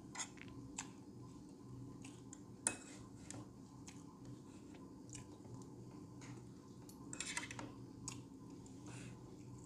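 Metal forks clinking and scraping against a plate as pancake is cut and picked up, in scattered light clicks with the sharpest one about two and a half seconds in. Close-miked chewing, over a faint steady hum.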